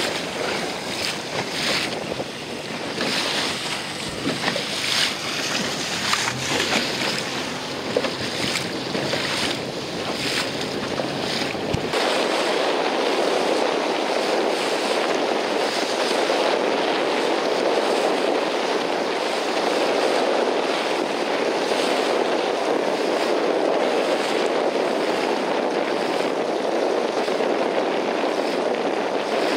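Wind gusting on the microphone over choppy open water, with waves splashing. About twelve seconds in it changes abruptly to a steady, even rushing noise with no bass.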